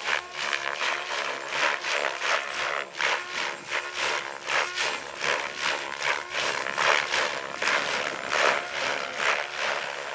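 Electric 700-size RC helicopter's main rotor whooshing in rapid, even bursts, about three a second, over a steady motor and rotor hum, as the collective pitch is pumped through hard 3D manoeuvres.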